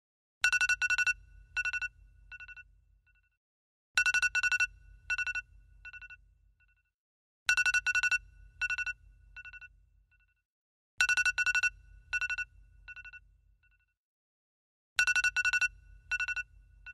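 Alarm clock ringing in five repeated rounds, about every three and a half seconds: each round is a quick cluster of loud, high ringing strokes followed by a few fainter, dying repeats and a short silence.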